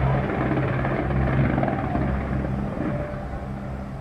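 Fireworks display: a dense, continuous rumble and crackle of many shells bursting at once, easing off in the last second.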